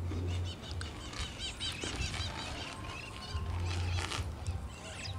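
Outdoor ambience: a low rumble that comes and goes in gusts, with a quick run of high chirps between about one and two seconds in.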